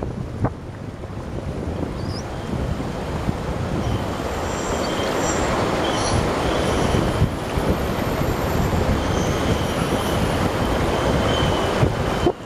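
Fast-flowing river water rushing steadily, with wind buffeting the microphone; the rush grows over the first few seconds and then holds. Faint, brief high-pitched squeals come and go on top of it.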